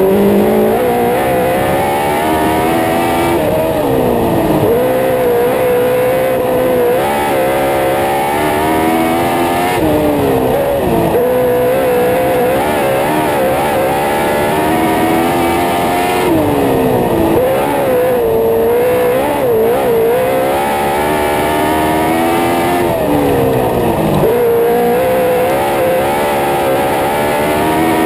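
Lightning sprint car's 1000cc motorcycle engine at race speed, the revs dropping sharply into each turn and climbing again down the straights, four times over.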